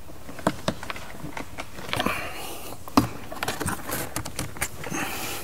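Scattered small plastic clicks and taps from hands working a trim clip on a car's door panel, with rubbing and rustling between them and one sharp click about three seconds in.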